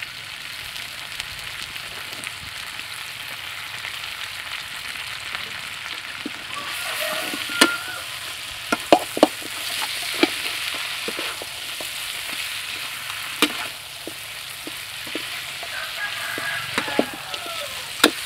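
Crispy pork pieces and basil leaves sizzling in a frying pan while a metal spatula stirs them, with sharp clicks as the spatula strikes the pan. The sizzle grows louder about seven seconds in.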